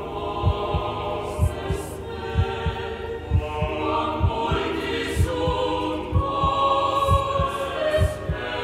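Background music: a steady low pulse of about two beats a second under sustained, slowly changing held notes, choir-like in character.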